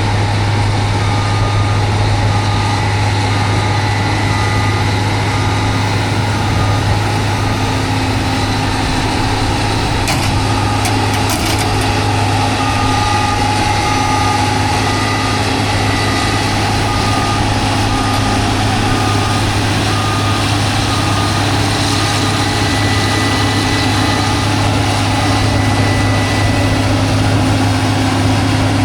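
Combine harvester running steadily from inside the cab, a constant low engine drone, with a cab alarm beeping in an even repeating pattern from about a second in that stops a few seconds before the end.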